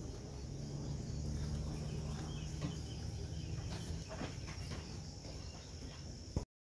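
Steady high-pitched insect chirring over a low background rumble, with a few faint clicks in the middle; it cuts off abruptly near the end.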